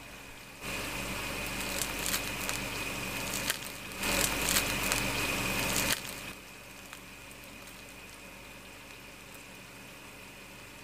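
Crisp sesame-coated crust of a fried dough cheese ball crackling and rustling as fingers handle it and break it open, in two stretches over the first six seconds, the second louder. After that, only a faint steady high-pitched whine.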